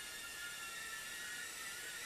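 Whine of a Furibee F36 micro quadcopter's motors and propellers, a steady high-pitched hum whose pitch wavers slightly as the throttle changes while it comes down to the floor.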